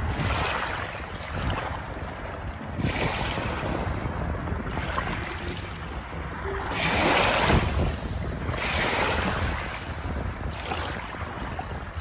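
Small waves lapping over a shallow pebble shore, each wash swelling and ebbing every few seconds. Wind rumbles on the microphone underneath.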